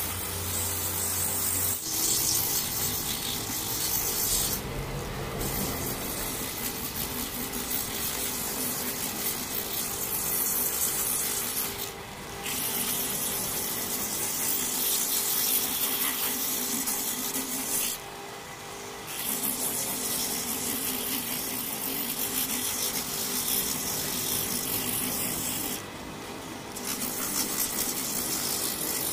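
Handheld rotary grinder with an abrasive disc buffing the rubber around a damaged spot on a tractor tire's sidewall: a steady rasping grind that briefly drops away several times as the disc eases off the rubber.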